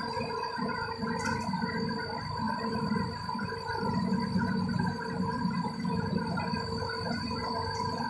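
Diesel engine of the heavy equipment running at idle, an uneven rough rumble, with a steady high whine over it.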